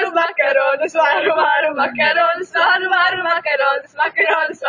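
A group of young voices singing together, loud and without a break.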